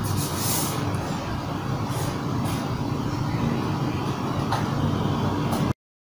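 A few short rustles of hands smoothing adhesive tape and paper on a wooden drawing board, over a steady low background rumble. All sound cuts off abruptly near the end.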